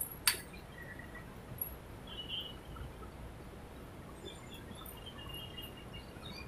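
Outdoor background noise: a steady low rumble with faint scattered high chirps, and one sharp click shortly after the start.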